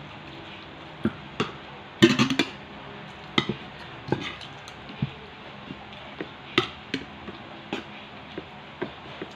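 Metal spoon and fork clinking and scraping against a plate and a bowl while scooping food: a dozen or so sharp clicks spread unevenly, with a loud rattling cluster about two seconds in.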